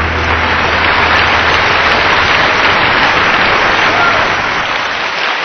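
Audience applauding: steady, dense clapping just after the song has ended.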